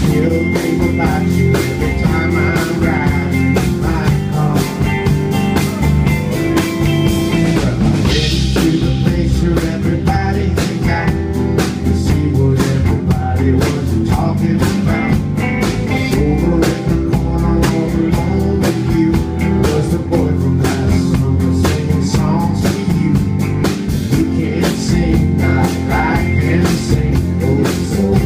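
Live band music: an acoustic guitar strummed over a drum kit, with a man singing.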